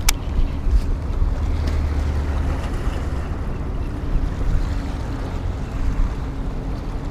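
Wind buffeting the microphone in a steady low rumble, with small bay waves washing against shoreline rocks. A single sharp click sounds just at the start.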